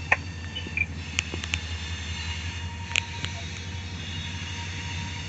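Freight train running by with a steady low rumble, broken by a few sharp clicks.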